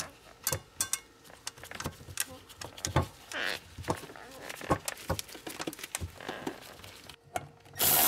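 Small metal clicks and knocks as nuts are fitted by hand onto the studs of a fuel tank access cover, then, near the end, a cordless electric ratchet starts running on a nut.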